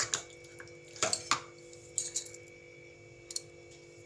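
A spoon clinking and tapping against small bowls, about five light clinks spread over a few seconds, as salt is added to marinating chicken and prawns. A faint steady hum runs underneath.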